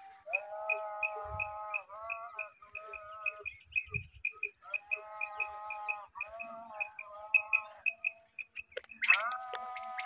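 Background music: a melody of long held notes that step in pitch, over a quick, even series of short high chirps about four a second, louder near the end.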